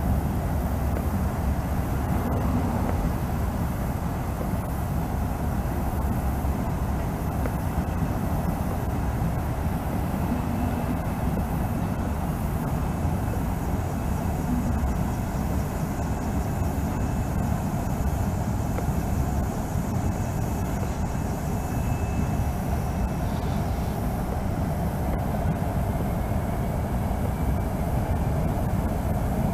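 A train rolling past, a steady rumble of wheels on the rails with no break or change in level.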